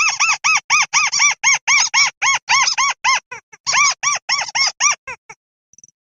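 Buff-banded rail calling: a fast run of loud arched notes, each rising and falling in pitch, about four a second. There is a short break a little past halfway, and the calls stop just after five seconds in.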